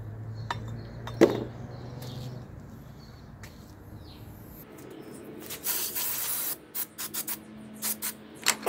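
Aerosol brake cleaner sprayed onto oily engine timing parts to degrease them: hissing spray starting about halfway through, one long burst followed by several short ones. A single knock about a second in.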